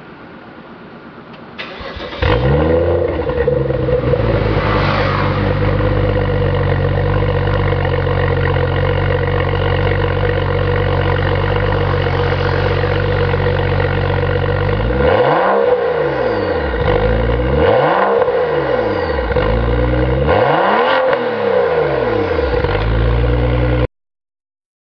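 BMW F10 535i's turbocharged straight-six starting about two seconds in and idling through a custom mid and rear exhaust with vacuum-controlled valves. It is then revved three times near the end, the pitch rising and falling each time, and the sound cuts off suddenly just before the end.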